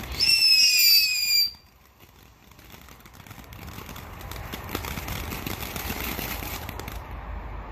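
Ground fountain firework: a loud, slightly falling whistle for about a second and a half cuts off sharply. The fountain's hissing, crackling spray of sparks then builds up again.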